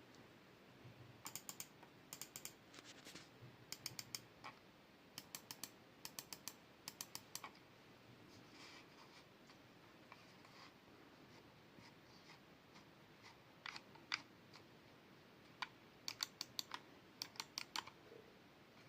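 Lenovo M210 wired mouse buttons clicking in quick runs of three or four, with short pauses between runs and a longer pause about halfway through.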